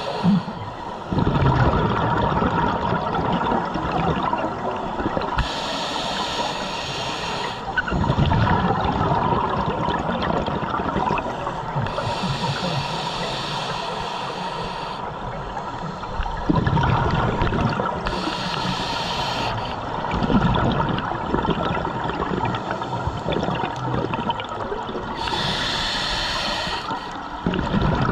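Scuba diver breathing through a regulator underwater: a hiss on each inhale, about every six or seven seconds, followed each time by a gurgling rush of exhaled bubbles.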